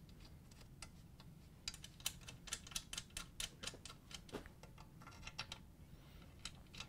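A quick run of faint, light clicks and ticks from large Phillips screws being handled and started by hand into the base of a stand mixer. The clicks come thick from just under two seconds in and thin out to a few scattered ones after about four seconds.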